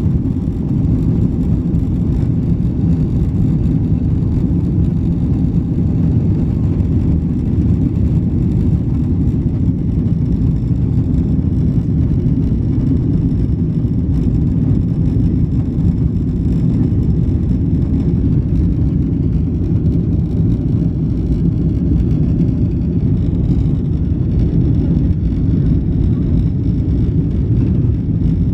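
Boeing 777 engines at takeoff thrust heard from inside the cabin: a loud, steady, deep rumble through the takeoff roll and climb-out.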